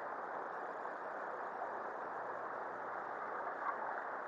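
Shallow river water flowing steadily over stones, a constant rushing hiss, with one faint click near the end.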